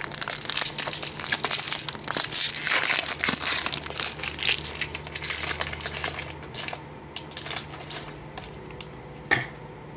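Foil wrapper of a Pokémon TCG Burning Shadows booster pack crinkling as it is handled and opened. It is loudest over the first six seconds, then dwindles to a few small crackles.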